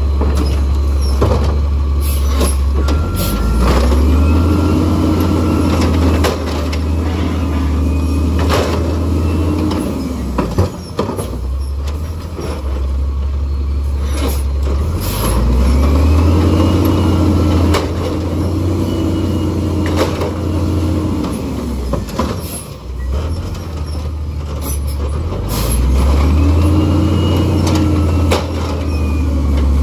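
Automated side-loader garbage truck collecting trash carts. Its diesel engine revs up and holds high for several seconds while the hydraulic arm works, then drops back to idle, three times over, with clunks and knocks from the arm and carts.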